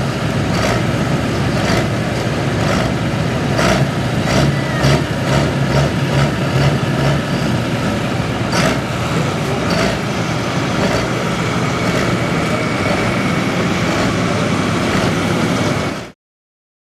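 Diesel farm tractor engine running steadily and loud, with scattered sharp knocks over it; the sound cuts off suddenly near the end.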